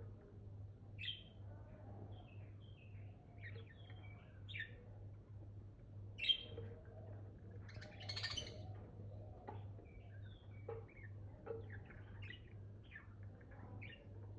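Budgerigars chattering: a string of short chirps and warbles, with one sharp, louder call about six seconds in.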